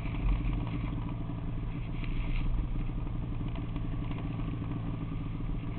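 Snowmobile engine running steadily at low revs, close to the microphone.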